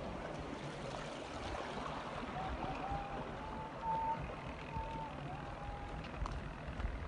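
Water running down a concrete-lined irrigation channel as a steady rushing hiss. A thin whistling tone wavers over it, holding, stepping and dipping in pitch, and breaks off for a while in the middle.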